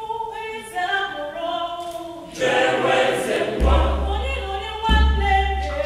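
Mixed choir of women's and men's voices singing in parts, growing louder and fuller about two and a half seconds in. In the second half a deep low rumble comes and goes under the voices.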